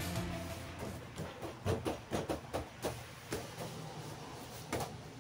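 Hands patting and pressing a headliner board down onto spray-glued, foam-backed headliner fabric: a run of soft, irregular pats. Background music fades out at the start.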